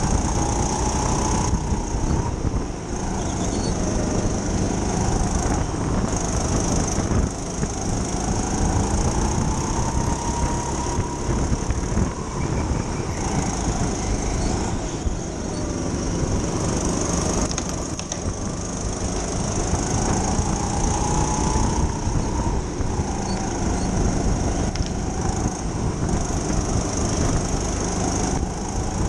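Racing go-kart heard on board at speed, its motor pitch rising and falling in long sweeps every few seconds as it accelerates and slows through the lap, over a steady low rumble.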